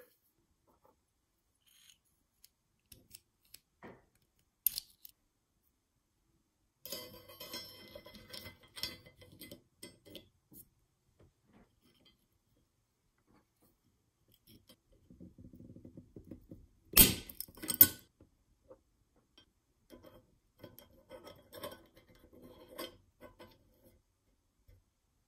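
Small steel M1 Garand rear sight parts being handled and fitted into the receiver: scattered metal clicks, light scraping and rattling, with two sharp loud clicks about two-thirds of the way through.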